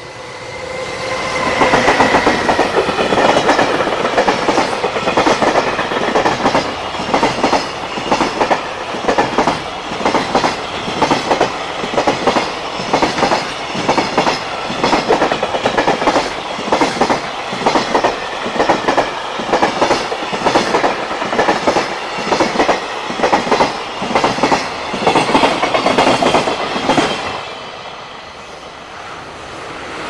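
EF210 electric locomotive passing close about two seconds in, then its long train of container wagons rolling by with a regular clickety-clack of wheels over the rail joints, about one group of beats a second. The clatter fades out near the end as the last wagon passes.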